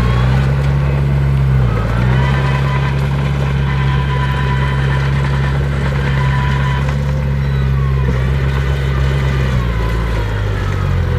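Heavy diesel engine of earthmoving machinery running steadily, its pitch dipping briefly about two seconds in and again near the end, with faint high whines over it.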